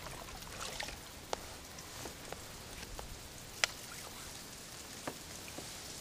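Faint water sounds of a small hooked bass being reeled to the kayak: light drips and splashes with a few sharp ticks at irregular intervals, the loudest a little past the middle.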